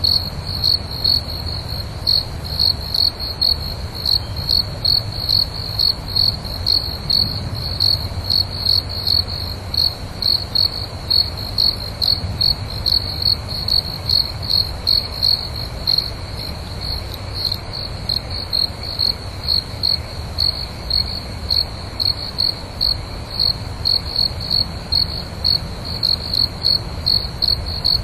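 Crickets chirping: a high, even chirp repeating about twice a second without pause, over a faint low rumble.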